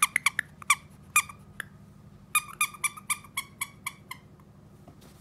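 A pink strawberry plush squeaky toy squeezed by hand, giving short, sharp squeaks in two quick runs about a second apart.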